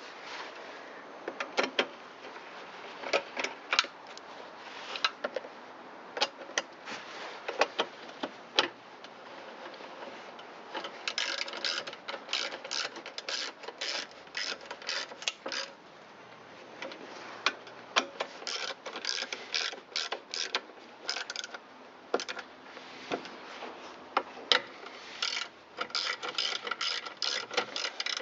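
Scattered clinks and taps of metal tools and parts, then from about eleven seconds in, runs of rapid ratchet-wrench clicking as the fasteners on the starter surround ring are run down. A second stretch of ratcheting runs through the last ten seconds.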